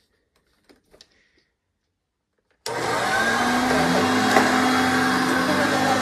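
1978 Hoover Concept One upright vacuum cleaner switched on. After near silence with a couple of faint clicks, it starts abruptly nearly three seconds in and runs steadily: a loud rush of air with a steady motor hum.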